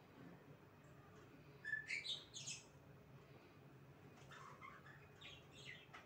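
Faint chirping of pet budgerigars: a few short rising chirps about two seconds in, and a few more between four and six seconds in.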